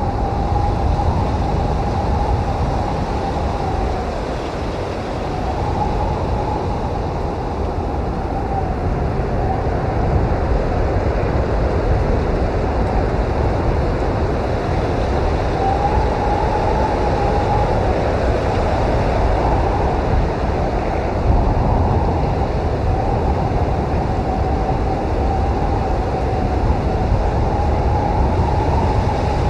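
Strong blizzard wind blowing steadily with a deep rumble, and a whistling howl that wavers up and down in pitch and comes and goes every few seconds.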